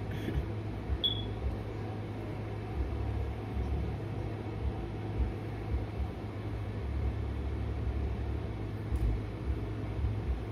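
Steady low hum and rumble of background machine noise, with a brief high chirp about a second in.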